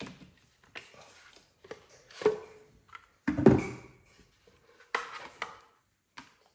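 A wireless hair dryer and its parts being handled and set down on a weighing scale: a series of separate hard knocks and clatter, the loudest about three and a half seconds in.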